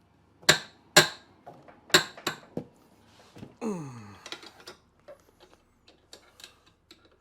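Sharp metallic clicks and taps from hand tools on the motorcycle's saddlebag bolts, four loud ones in the first two and a half seconds, then lighter ticks. A short grunt of effort falls in pitch about four seconds in.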